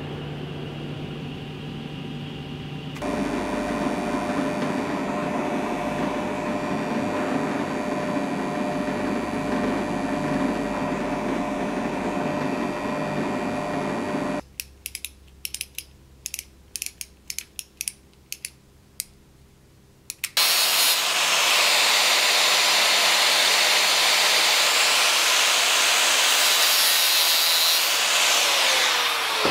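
Workshop power tools: after a low machine hum, a drill press runs steadily for about ten seconds, drilling a small metal fitting. Then come several seconds of sharp, irregular clicks. Last and loudest, an angle grinder cuts metal for about nine seconds and spins down with a falling whine at the end.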